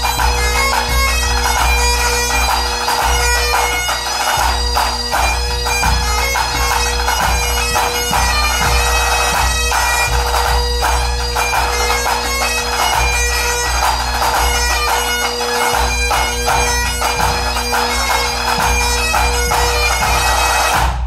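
A pipe band of Great Highland bagpipes and drums playing: the pipes' steady drones sound under the chanter melody, with snare drums rattling and a bass drum beating. The whole band stops together at the very end.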